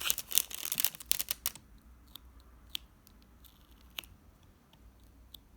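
Crinkling and crackling of a diamond painting canvas and its plastic cover sheet being handled. The sound is dense for about the first second and a half, then thins to a few faint, light ticks.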